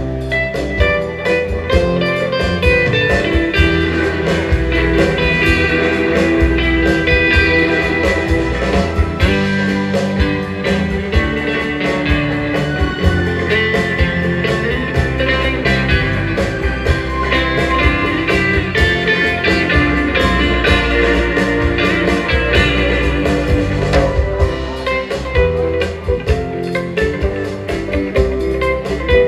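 A live rautalanka band playing an instrumental: an electric guitar carries the melody over bass and a steady drum beat.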